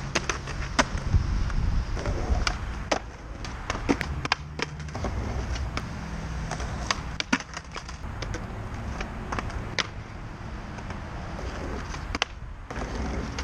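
Skateboards rolling on rough concrete with a steady low rumble, broken by many sharp clacks as decks hit the ground and the edge of a concrete ledge during noseslides.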